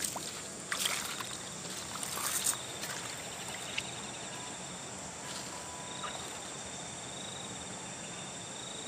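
A few water splashes in the first couple of seconds as a freshly caught mahseer thrashes in a shallow rock pool, then a steady pulsing insect trill over a constant hiss.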